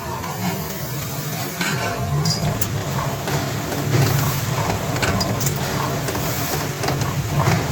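Factory machinery running steadily with a low hum, with irregular sharp clicks and ticks throughout.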